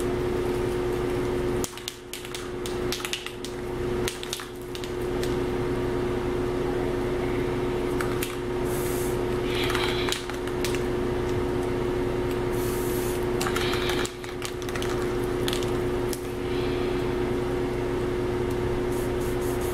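Rust-Oleum camouflage aerosol spray paint can hissing in several short bursts as paint is sprayed through a cut-out stencil onto an airsoft rifle, over a steady low hum.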